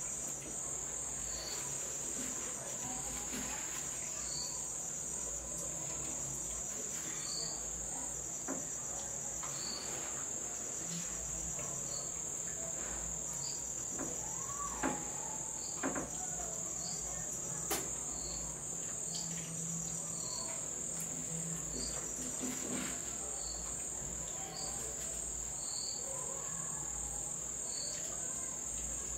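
Steady high-pitched chorus of crickets, with a fainter chirp repeating about once a second over it. A few short sharp clicks stand out around the middle.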